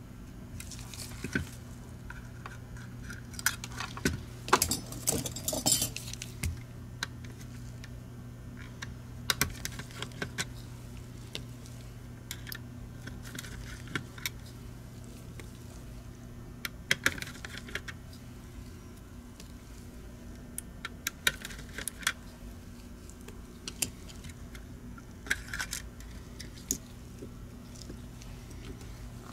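Scattered small clicks and clinks of a screwdriver and small plastic and metal parts being handled and set down while a Logitech G Pro Wireless mouse is taken apart to remove its switch module. They come in short clusters over a steady low hum.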